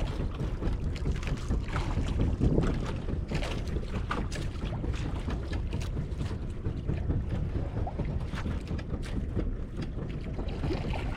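Wind buffeting the microphone over water moving against a small fishing boat's hull, with scattered short knocks and splashes.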